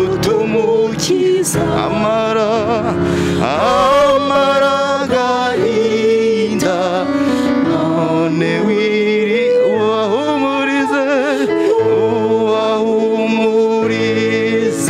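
A gospel song: a single voice singing with a wide vibrato over held accompanying chords.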